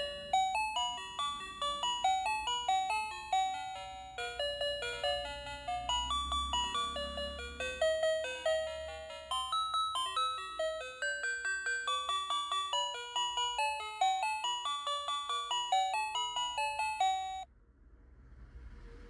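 Tinny electronic melody from a battery-operated toy's built-in speaker: a quick run of short, chiming notes that cuts off suddenly near the end.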